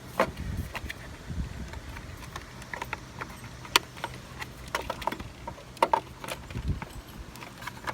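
Plastic clicks and knocks as the fuse box housing's tabs are pried loose and the box is worked apart, with a few dull thumps. The clicks are scattered and irregular, the sharpest a little before the middle.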